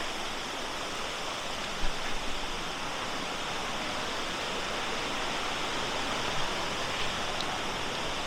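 Creek water rushing steadily, with a soft knock about two seconds in.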